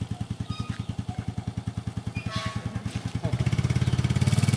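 Motor scooter's small single-cylinder engine idling with an even, rapid pulsing beat. It picks up and gets louder about three seconds in as the throttle is opened a little.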